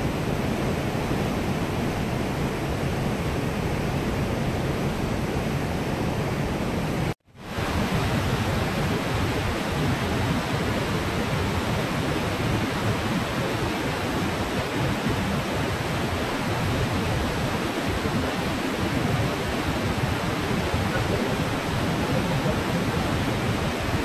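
Steady rush of fast-flowing river water through a rock channel. The sound drops out for an instant about seven seconds in, then the steady rush of a waterfall and rapids carries on.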